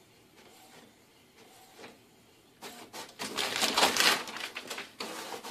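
Desktop printer running, with faint regular mechanical strokes. About two and a half seconds in, a loud burst of clattering and rustling lasts for a couple of seconds.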